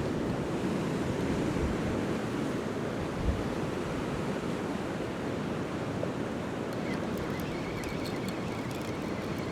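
Sea swell washing steadily against the pier barrier, with a single short low thump about three seconds in.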